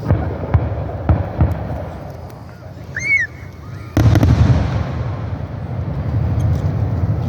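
Aerial fireworks going off: several sharp bangs in the first second and a half, then a much louder boom about four seconds in with a long rolling rumble as it echoes.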